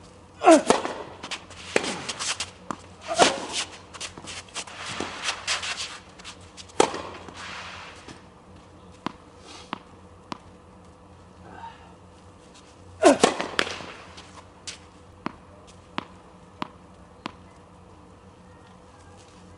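A tennis rally: rackets strike the ball with sharp pops and the ball bounces on the court between shots. About nine seconds in come light, evenly spaced ball bounces, then a hard racket strike about 13 seconds in.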